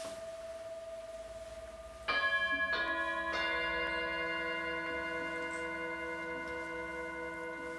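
Brass singing bowls struck with a mallet three times in quick succession, about two seconds in, over a bowl already humming. Their tones build into a long ringing chord that wavers slowly as it sustains.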